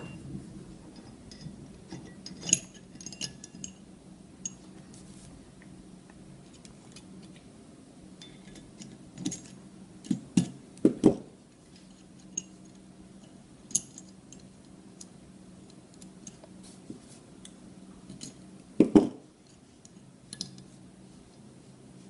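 Steel parts of an Ithaca 4E shotgun receiver and its top lever clicking and clinking as they are handled and fitted together by hand. Scattered sharp clicks, in a few clusters, the loudest about halfway through and again near the end, over a low steady hum.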